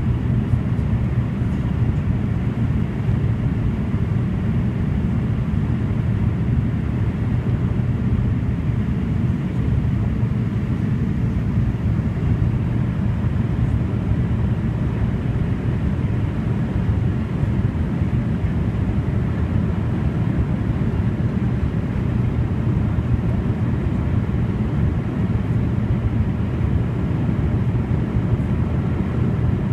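Cabin noise of a Fokker 50 twin turboprop on approach: the engines and propellers make a steady, even low drone.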